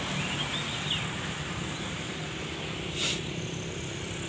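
Outdoor background with a steady low hum and a few short bird chirps in the first second. There is a brief scuff about three seconds in.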